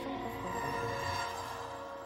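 Eerie music of sustained, held tones, slowly fading out.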